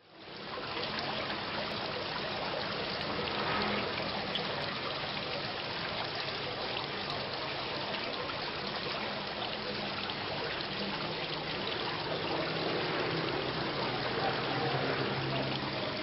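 Steady rain falling, an even hiss of many drops, fading in quickly at the start.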